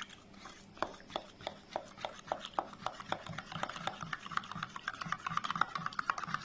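Metal spoon stirring milky tea in a plastic cup, scraping and tapping against the cup's sides about three times a second, turning to a denser rubbing in the second half.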